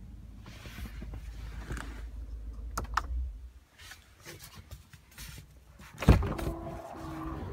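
Handling noise and small clicks inside a pickup cab, then a sharp loud clunk about six seconds in as the driver's door is unlatched from the inside handle and pushed open.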